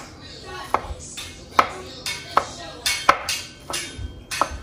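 Kitchen knife chopping pineapple on a wooden cutting board: a string of sharp knocks, roughly every half second, as the blade cuts through the fruit onto the board.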